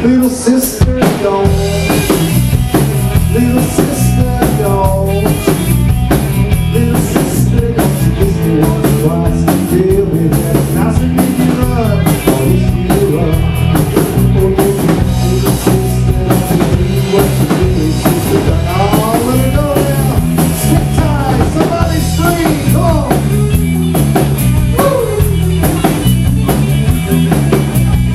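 Live rock band playing an instrumental break at full volume: an electric guitar lead with bending notes over electric bass and a steady drum-kit beat.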